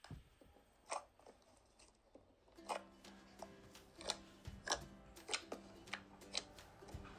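A series of sharp, crisp clicks or snaps, sparse at first and then coming about one every half second to second, over faint music that comes in near the middle.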